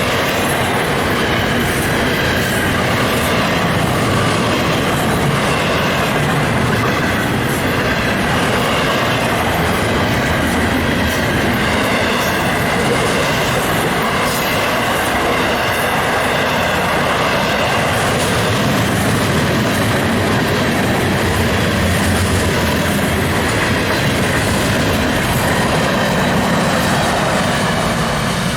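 A train passing close by: a loud, steady rumble of wheels on the rails, with clicking as the wheels cross rail joints.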